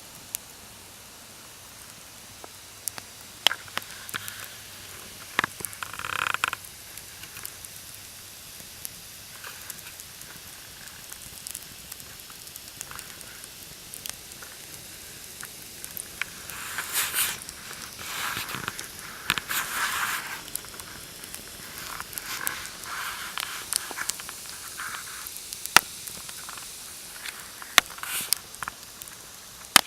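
Campfire crackling, with sharp pops from the burning wood scattered through, over a steady low hiss, and a few short stretches of louder hissing, rustling noise.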